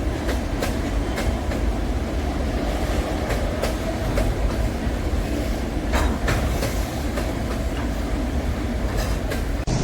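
Freight train cars rolling past over a bridge: a steady heavy rumble with irregular sharp clicks of the wheels passing over rail joints.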